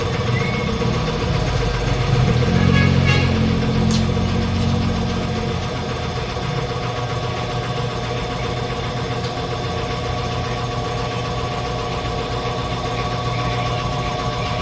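A motor or engine running steadily, with a louder low rumble from about two to five seconds in.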